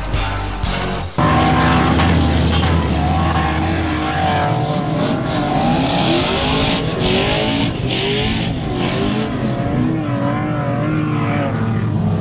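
Two Toyota Land Cruiser engines revving hard while climbing sand dunes, their pitch rising and falling again and again, sometimes overlapping.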